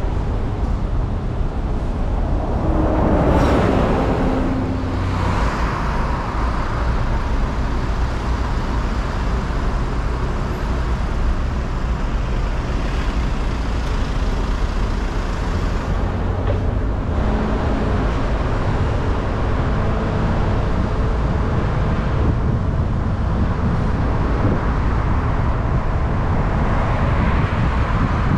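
Road and traffic noise while driving on a city avenue: a steady rumble of engines and tyres, with a louder passing vehicle swelling about three seconds in.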